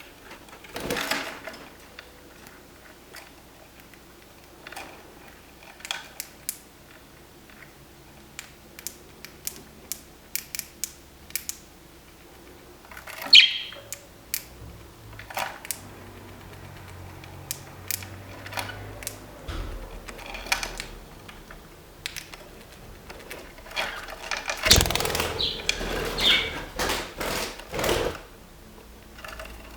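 Green budgerigar making a strange run of quick clicks and ticks with short chirps, growing into a denser, louder spell of calls near the end.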